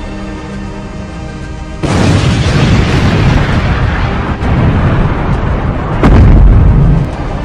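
Soundtrack music holding a chord, overlaid from about two seconds in by loud, noisy booming sound effects, with the loudest boom about a second before the end.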